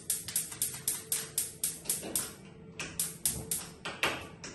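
Gas oven's spark igniter clicking rapidly, about four sharp clicks a second, with a short break a little past the middle, as the oven burner is being lit.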